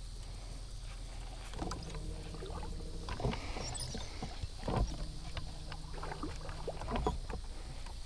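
Scattered knocks and clicks of handling on a fishing boat's deck, over a low steady hum.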